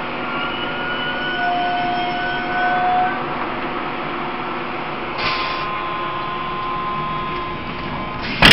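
Interior sound of a Taiwan Railways E1000 push-pull Tze-Chiang express train: steady running noise with faint whining tones that come and go. There is a short hiss about five seconds in and a loud sudden knock near the end.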